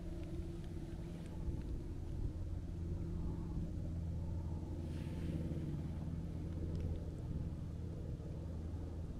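A steady low engine hum, holding one pitch throughout.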